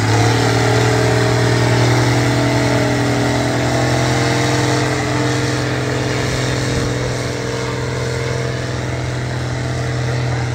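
Diesel engine of a white Case farm tractor running hard under load as it drags a weight-transfer pulling sled, a steady engine note with black smoke pouring from the stack. It grows slightly quieter from about halfway as the tractor moves off down the track.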